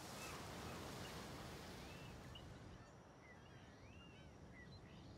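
Very faint ambience with a few soft, scattered bird chirps.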